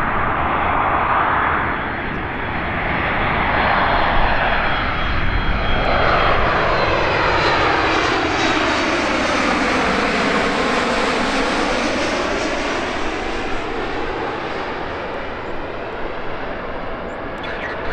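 Jet airliner passing low overhead on final approach, its engines running loud and steady. The whooshing sound sinks in pitch until about ten seconds in, when the plane is directly above, then rises again as it moves away.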